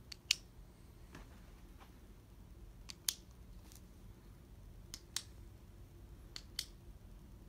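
Flashlight tail switch clicked on and off: four pairs of sharp clicks, each a press and release about a fifth of a second apart, spaced a couple of seconds apart. The first pair is the loudest.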